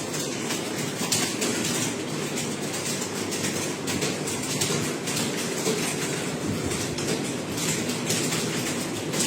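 Fast typing on a computer keyboard: a dense, unbroken clatter of key clicks.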